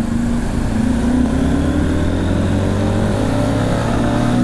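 Motorcycle engine running on the move under steady throttle, its pitch slowly rising.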